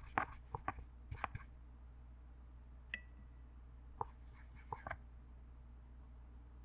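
Small clicks and taps of a paintbrush working against a plastic watercolour palette and its paint pans: a quick run of taps in the first second and a half, one sharper clink with a brief ring about three seconds in, and a few more taps around four to five seconds.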